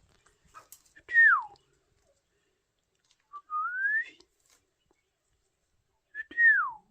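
Three clear whistles. The first falls in pitch about a second in, the second rises in the middle, and the third falls again near the end.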